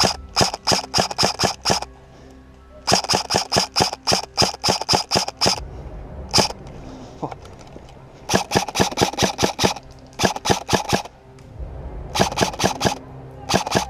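Airsoft guns firing in rapid strings of shots: several bursts with short pauses between them and one single shot about six seconds in. Background music plays underneath.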